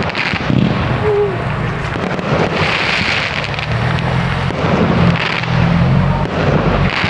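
Aerial fireworks going off in a large display: a continuous run of booms with crackling bursts, the strongest crackle about three seconds in.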